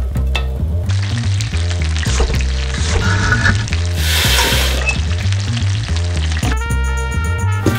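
Garlic and chilli sizzling in hot oil in a stainless steel frying pan, the sizzle swelling sharply about four seconds in as a liquid is poured into the hot pan. Background music plays underneath and comes to the fore near the end.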